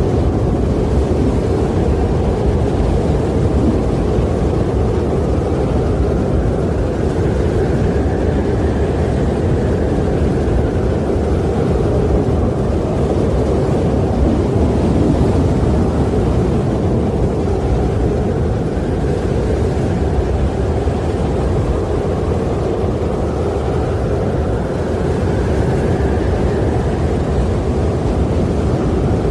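Wind blowing, a steady low rush that swells and eases twice, about a third of the way in and again near the end.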